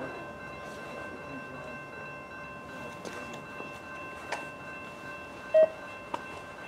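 Quiet outdoor background with a few faint steady high tones, some small clicks, and one short, sharp beep about five and a half seconds in.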